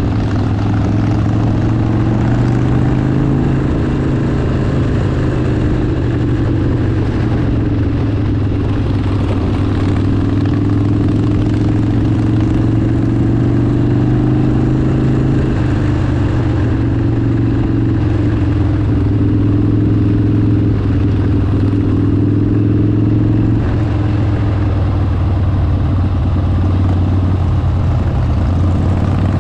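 Harley-Davidson V-twin motorcycle engine running at a steady cruise, its pitch rising and falling gently with the throttle.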